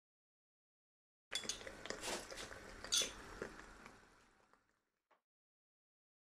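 Thick sauce bubbling in a non-stick wok as cornflour slurry is added, with a few sharp clinks of a metal spoon and utensils. It starts abruptly about a second in and fades out by about five seconds in.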